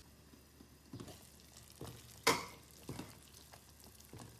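Pot of water boiling on a gas stove: a faint steady bubbling hiss, with a few soft knocks of the pot and lid, the loudest about two seconds in.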